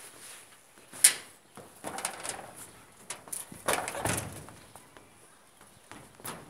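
Scuffs and knocks of someone clambering onto a corrugated garage roof: a sharp knock about a second in, then a louder scraping thud about four seconds in.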